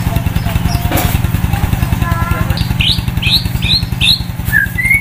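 Steady low pulsing of an engine running, the loudest sound throughout. From about halfway through, a white-rumped shama (murai batu) sings over it: a row of four quick sweeping whistles about half a second apart, then higher rising notes near the end.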